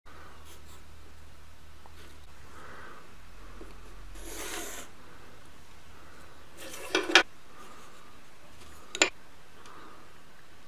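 Hand work on wood: a short scraping rub about four seconds in, then a quick pair of sharp knocks around seven seconds and one more about two seconds later.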